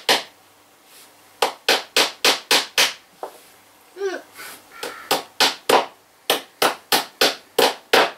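Hammer tapping the nail of a plastic cable clip into the wall: quick light taps about four a second, in two runs with a short pause between.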